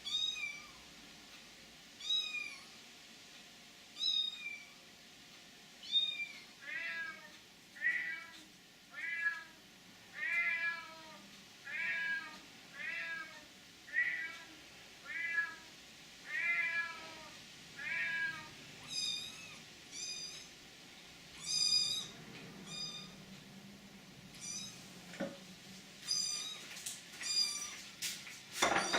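A cat meowing over and over in short calls that each drop in pitch. The calls come about every two seconds at first, then about once a second, and are higher-pitched toward the end.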